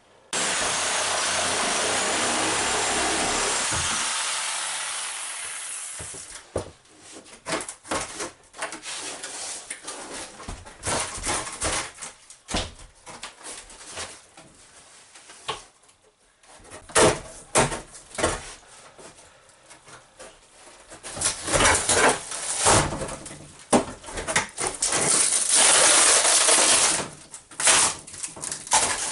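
A power tool runs loudly for about five seconds and winds down, followed by irregular knocks, scrapes and short bursts of tool noise from building work.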